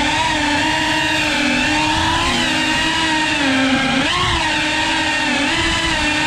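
FPV drone's electric motors and propellers whining steadily, the pitch wavering up and down with throttle and rising sharply about two-thirds of the way through.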